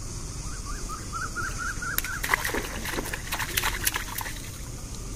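A hooked fish thrashing and splashing at the water's surface on a bamboo pole line, a burst of splashes lasting about two seconds. It is preceded by a quick run of small high chirps.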